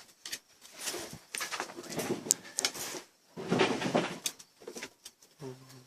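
Puppies playing, with irregular rustling, scuffling and sharp clicks, and a short low animal vocal sound near the end.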